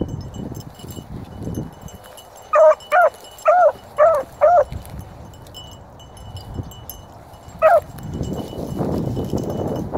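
Bluetick coonhound puppy baying on a rabbit's trail: a quick run of five loud, arching bawls, then one more a few seconds later.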